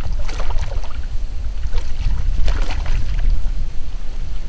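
Water splashing beside a kayak as a hooked bass thrashes at the surface while being landed, in two bouts: one at the start and another about two and a half seconds in. A steady low wind rumble on the microphone runs underneath.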